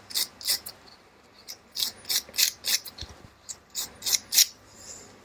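A quick, irregular run of short scraping strokes on small carburettor parts, about a dozen in all.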